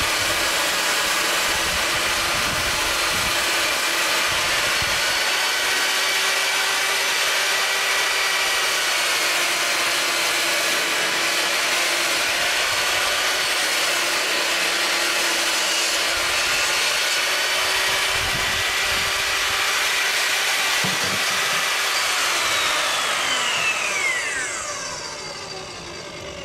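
Skil TS6307-00 10-inch jobsite table saw ripping a long sheet of 3/4-inch MDF, the motor and blade running at a steady pitch under the cut. Near the end the saw is switched off and its whine falls away as the blade spins down.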